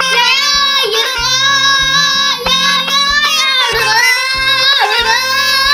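A song with a high singing voice holding long, wavering notes over a bass line that steps from note to note.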